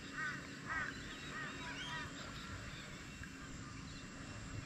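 Birds calling: a quick run of short rising-and-falling chirped notes in the first couple of seconds, then fainter scattered calls.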